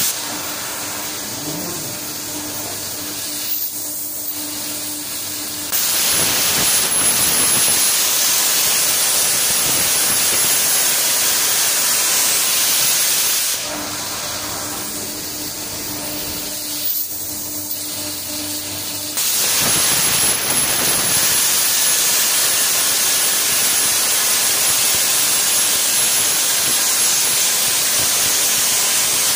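Hypertherm MaxPro200 plasma torch on a CNC gantry table cutting steel plate: the plasma arc makes a loud, steady hiss. Twice, for about six seconds (at the start and again from about 13 seconds in), the arc is off between cuts and only a quieter hiss with a steady hum remains. The arc comes back on about six seconds in and again about 19 seconds in.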